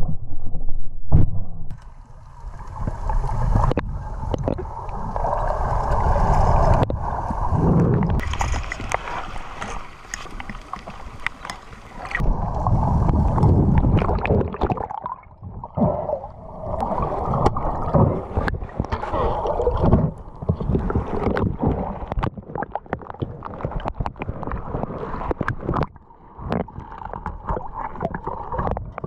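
Water sloshing, gurgling and splashing around a GoPro as a snorkeller swims, the camera dipping in and out of the surface. Scattered knocks and clicks come from handling the camera housing and speargun.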